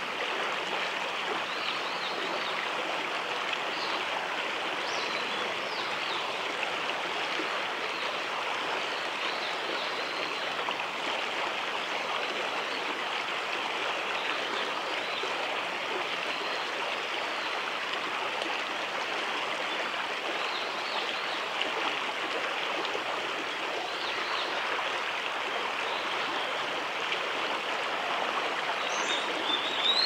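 Shallow stream rushing steadily over rocks. Near the end, a common kingfisher gives a quick run of high, thin calls.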